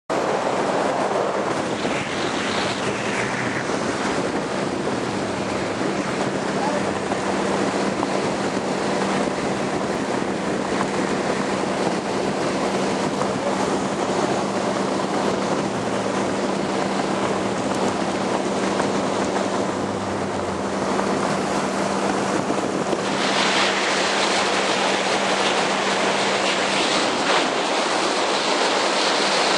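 Motorboat underway at speed, water rushing past the hull and wind buffeting the microphone, over a steady engine hum. The hiss of wind and spray grows louder about three quarters of the way through.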